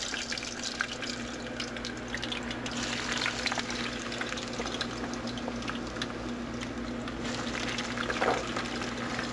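Fresh-cut shoestring potatoes deep-frying in a Fry Daddy electric deep fryer: the hot oil sizzles and crackles steadily, foaming up around a fresh load of raw fries. A steady low hum runs underneath.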